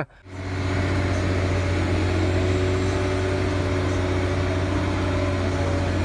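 Engine of a large telescopic crawler crane running at a steady speed, a constant low hum with a few steady tones above it, starting about a third of a second in.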